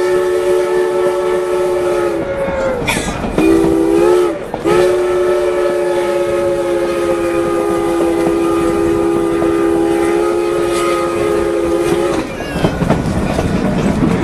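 Chime steam whistle of a 4-4-0 steam locomotive sounding several notes at once. A long blast ends about two seconds in, then comes a short blast, then a long blast of about seven seconds, the closing part of a grade-crossing signal. Under it the coach's wheels clack and rumble on the rails.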